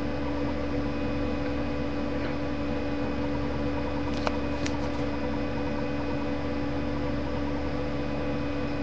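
A steady mechanical hum holding a few fixed pitches, with a couple of faint ticks a little over four seconds in.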